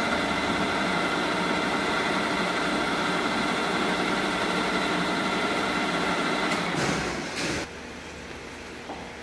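Ikeda RM-1575 radial drill running, its geared head giving a steady whine of several tones. About seven seconds in it shuts off, with a brief burst as it stops.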